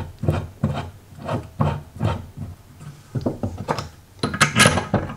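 Cast-iron drill press vise being tightened by hand, its screw handle cranked round in a series of short scraping strokes about three a second. A louder clatter about four seconds in.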